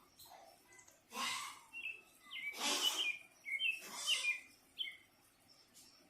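A songbird calling in a quick run of short, high chirps, with four harsh, rasping noisy bursts among them that are louder than the chirps.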